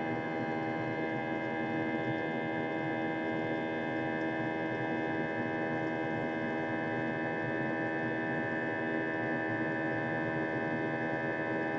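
Jet airliner's engines heard inside the passenger cabin in flight: a steady drone with several fixed tones over a rushing hiss.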